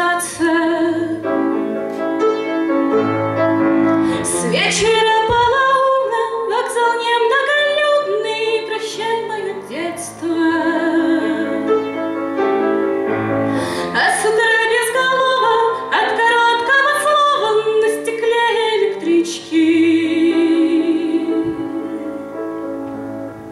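A woman singing a Russian song in a bard style, accompanying herself on an August Förster piano, with vibrato on some held notes.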